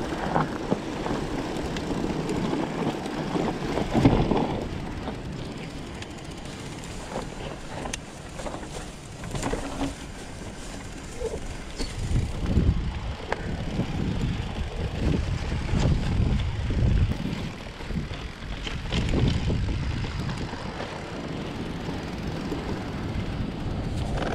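Wind buffeting the microphone as an e-mountain bike rolls down a dirt singletrack, with tyre rumble and scattered knocks and rattles from the bike over bumps.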